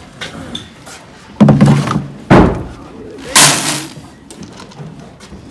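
Three loud clattering knocks, about a second apart, from feed scoops and containers being handled while horse grain and supplements are measured out.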